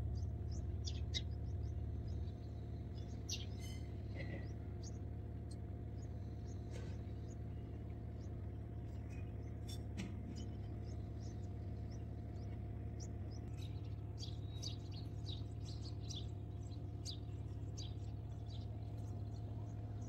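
Samsung WA70BG4545BD top-load washing machine's digital inverter motor running with a steady low hum, a little louder for the first two seconds. Birds chirp often over it, most in the second half.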